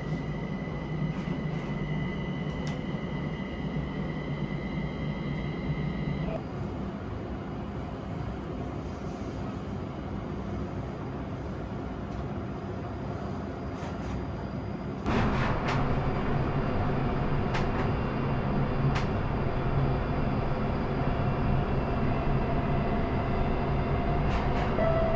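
Steady running noise inside a Linimo HSST maglev car gliding along its guideway, with no wheel-on-rail noise since the car floats off the track. A steady high whine sounds for the first six seconds and stops. About fifteen seconds in, the noise gets louder, with a few light ticks.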